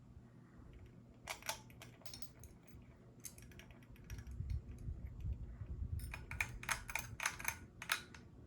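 Ceiling fan with a 188mm motor humming steadily, with several irregular clusters of sharp clicking laid over the hum.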